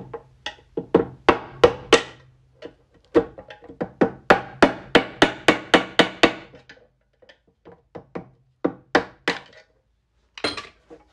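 Rapid sharp knocks of a screwdriver being driven against old spark plug tube seals to knock them out of an aluminium Honda valve cover, about four a second, pausing briefly near the start and thinning to a few scattered strikes in the last few seconds.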